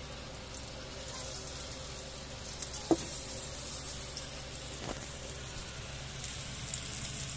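Flour-coated chicken pieces deep-frying in hot oil in a wok: a steady crackling sizzle, with two light knocks about three and five seconds in.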